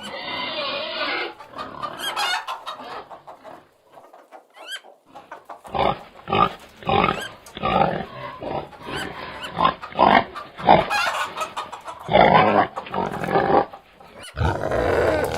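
Pigs grunting in a run of short, rough calls. After a quieter stretch, the calls come about two a second from about six seconds in, with one longer call near the end.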